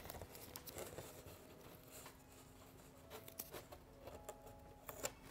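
Near silence with faint, scattered light taps and rustles of hands-on work, as cardboard and tools are handled at the bench.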